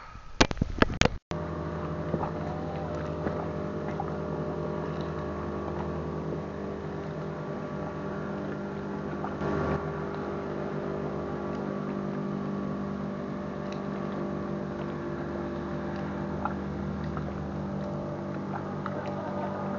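A few sharp knocks in the first second, then the steady drone of a motorboat engine running out on the lake, holding an even pitch throughout.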